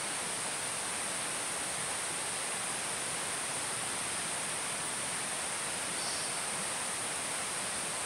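Steady tropical forest ambience: an even hiss topped by a constant high-pitched drone, with one brief faint high chirp about six seconds in.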